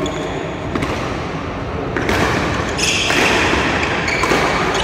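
Badminton rally: sharp clicks of rackets striking the shuttlecock, followed from about halfway by several longer hissing, scuffing noises of roughly half a second each.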